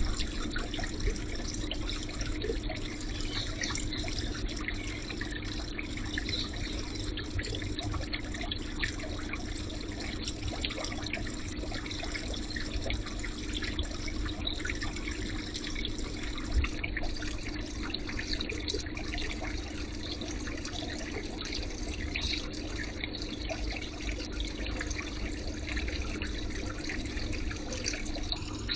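Flue terminal venting combustion exhaust: a steady rushing hiss with a steady low hum under it.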